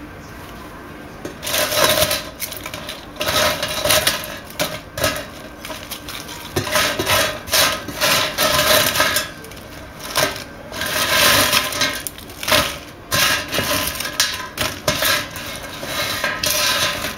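Rustling and crackling as a thin nonwoven sheet is handled over a metal tray of dried pufferfish fins and the dry fins are gathered into it. The noise comes in irregular bursts starting about a second and a half in.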